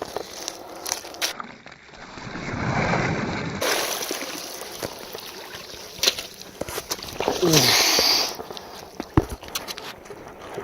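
Lake ice being broken at the edge of a hole of open water: a few sharp knocks and cracks, with water sloshing and splashing.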